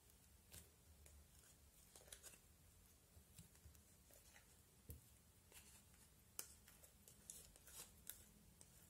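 Faint, irregular sticky clicks and crackles of slime being scraped with fingers out of a small plastic cup and onto another slime.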